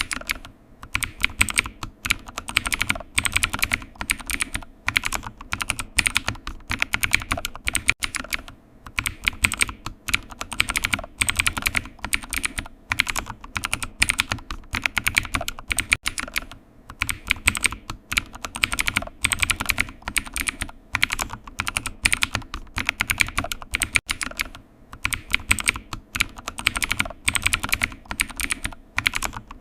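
Computer keyboard typing: fast, continuous keystrokes in runs, broken by brief pauses every several seconds.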